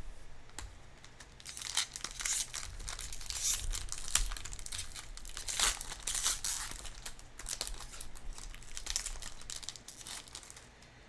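A Magic: The Gathering booster pack's foil wrapper being torn open and crinkled, in irregular crackly bursts for most of the stretch.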